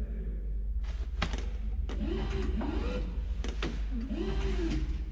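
Platform lift's hold-to-run controls and drive: a steady low hum with a few sharp clicks and short whines that rise and fall in pitch, as the buttons are pressed while the lift fails to travel.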